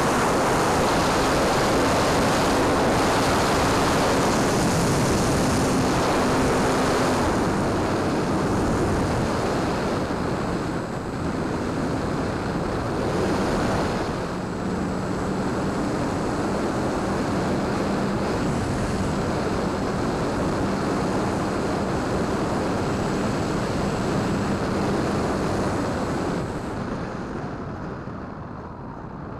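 Onboard sound of a Dynam Tiger Moth electric RC biplane in flight: a steady rush of wind over the camera, with the faint hum of its electric motor underneath. Near the end the rush dies down as the plane slows and comes down onto the grass.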